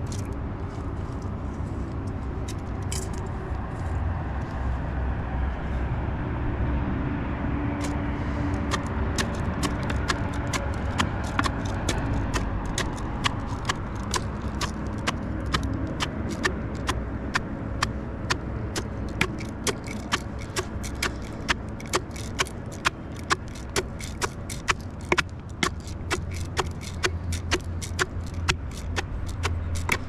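A wooden pestle working in a metal mug: first a steady grinding and scraping as dry ingredients are crushed, then, from about eight seconds in, sharp rhythmic knocks on the metal at about two strokes a second as she pounds.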